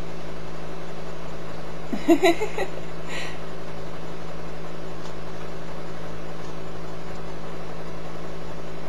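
A steady electrical or mechanical hum at one constant pitch. About two seconds in, a brief high pitched sound bends upward.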